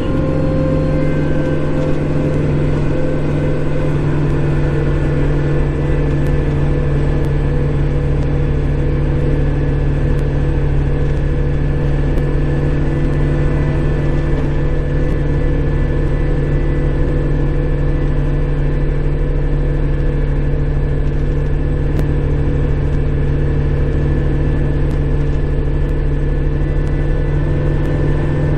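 Kubota Grand L5740 tractor's diesel engine running steadily under work, heard from inside the closed cab.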